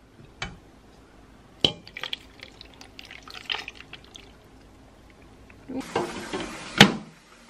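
Chunks of potato and carrot knocking into a stainless steel pot, then a thick sauce being poured over them; near the end a loud metal clunk as the stainless inner pot is set down into the Instant Pot base.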